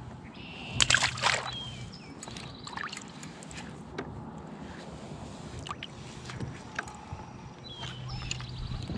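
Handling noises and light knocks on a plastic fishing kayak, with water moving against the hull. A louder rough burst comes about a second in, then scattered single clicks and taps.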